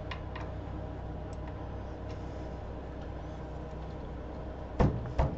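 Small metal parts clicking and knocking as a footpeg bracket, washer and bolt are handled and fitted to a motorcycle's footpeg mount: a couple of faint clicks near the start, then two sharper knocks close together near the end, over a steady low hum.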